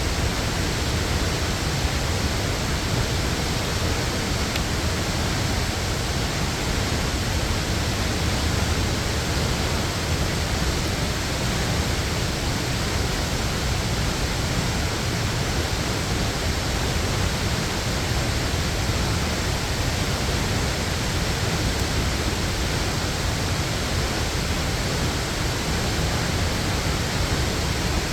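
Waterfall's steady rush of falling water, an even roar without change.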